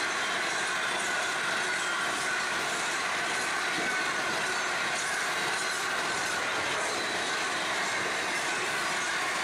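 Freight hopper wagons rolling past on steel rails: a steady wheel-on-rail rumble with a thin, high wheel squeal that drifts slightly lower in pitch, and faint clicks of wheels passing over the rail joints.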